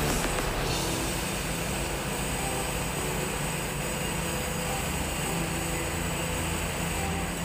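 A steady, low mechanical drone of running machinery, with a constant hum and a hiss above it.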